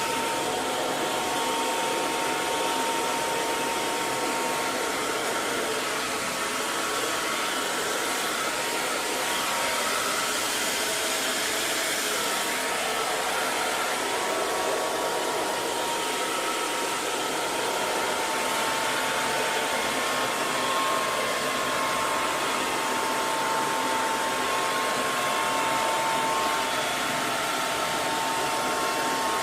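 Hair dryer blowing steadily: an even rushing whoosh of air with a faint steady whine from the motor.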